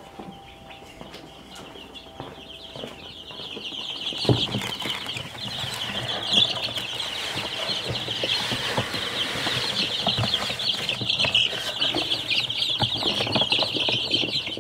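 A brood of young chicks peeping in a dense, continuous chorus of high peeps that starts about half a second in and grows louder. Under it, rustling and the grainy pour of chick feed into a plastic feeder trough.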